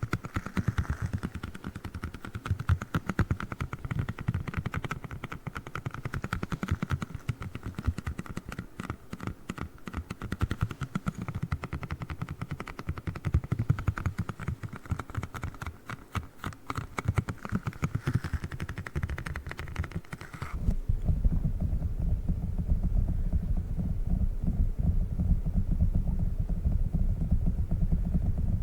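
Small squishy octopus toy being squeezed and kneaded close to the microphone, giving a dense stream of rapid sticky crackles and clicks. About 20 seconds in the sound switches abruptly to a dense low rumble.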